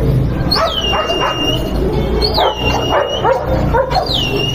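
A dog whining: three high whines, each dropping quickly in pitch and then held for about a second, coming at a steady pace, over a busy background of clatter and indistinct voices.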